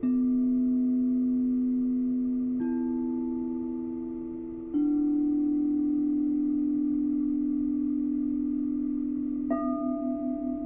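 Frosted quartz crystal singing bowls struck one at a time with a mallet, four strikes in turn, each a clear pure tone that rings on and overlaps the last. The last strike, near the end, rings with a wobbling beat.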